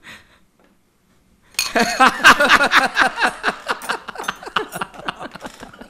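A group of diners bursting into loud laughter, the laughs coming in quick falling pulses for about four seconds starting a second and a half in, with glasses clinking on the table.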